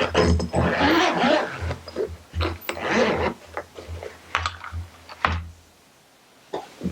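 Packaging being handled and unpacked: plastic and cardboard rustling and crinkling in irregular bursts, with a few sharp clicks, then a short lull near the end.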